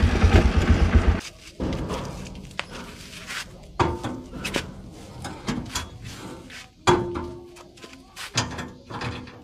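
CFMoto CForce ATV engine running loudly for about the first second, then cutting off. After that come about half a dozen metal clanks and knocks, a few with a brief ringing, as the boat trailer's drawbar and the ATV's tow hitch are handled.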